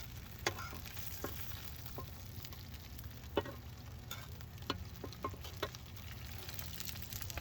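Food frying in a pan of hot grapeseed oil: a steady sizzle with scattered sharp pops and crackles at irregular intervals.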